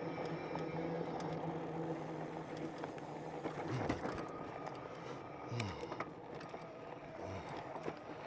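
Bikonit MD 750 fat-tire e-bike on a dirt trail: a steady electric motor whine over tyre and riding noise for the first few seconds, then the whine fades out. After that, scattered knocks and rattles from the bike as it rolls over the trail.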